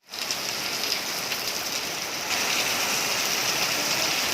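Heavy rain pouring in a windy storm: a steady hiss that gets a little louder about two seconds in.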